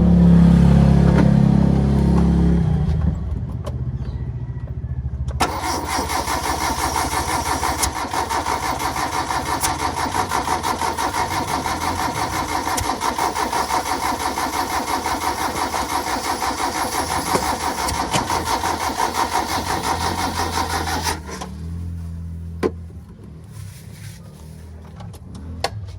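Starter motor cranking a petrol engine that does not catch: a fast, even cranking rhythm that runs for about fifteen seconds and stops abruptly. This is a hard-start attempt on an engine with no fuel coming up, which the mechanics take for a fuel pump that is not pumping. A louder low hum is heard over the first few seconds.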